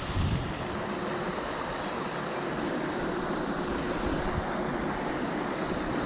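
Steady rushing outdoor noise with wind buffeting the microphone, strongest right at the start, and a faint steady hum underneath.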